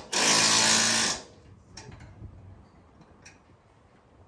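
A handheld power tool run in one burst of about a second on a bolt at the truck's front bumper mount, a dense steady buzz, followed by a few faint clicks.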